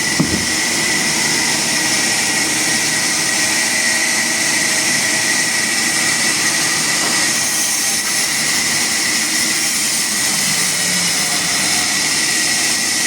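Machinery running steadily: a constant high whine over a wide hiss, with no change in speed.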